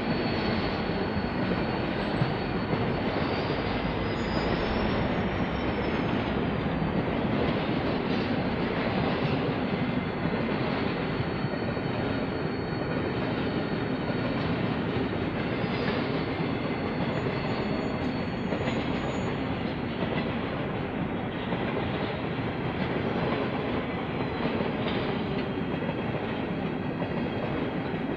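Freight train rolling past at close range: a steady, dense rumble and rattle of wheels on rail, with a thin, high wheel squeal running over it that wavers in pitch a few seconds in.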